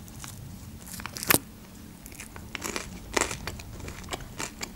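Close-miked eating sounds: biting into a slice of pide, a pizza-style flatbread, and chewing it, with crisp crunches of the crust. The sharpest crunch comes about a second in and another just after three seconds.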